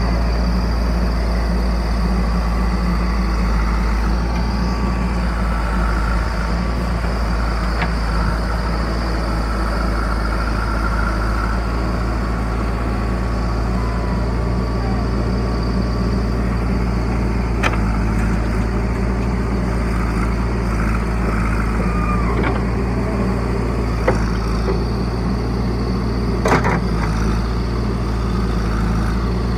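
Diesel engine of a heavy machine, a backhoe loader or tractor, running steadily throughout, with a few short sharp knocks.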